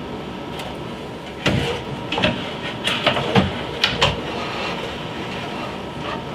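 Electrician's fish tape being worked from its reel up through a wall cavity: a run of sharp knocks and scraping rattles, about six of them between one and four seconds in, over a steady hiss.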